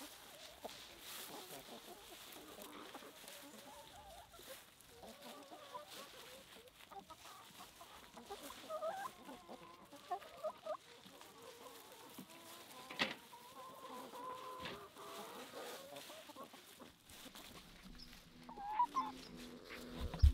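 A flock of chickens clucking, with many short, overlapping calls. A single sharp click about two-thirds of the way through is the loudest moment.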